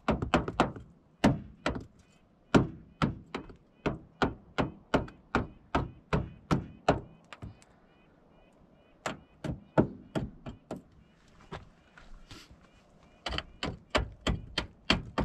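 Rapid hand-tool blows chipping at frozen mud packed in a Toyota 4Runner's rear wheel well, about two to three sharp knocks a second. The knocking comes in three runs, pausing briefly twice.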